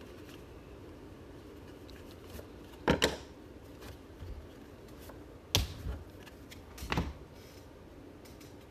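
Trading cards and packs handled on a table: three sharp taps, about three, five and a half and seven seconds in, over a faint steady room hum.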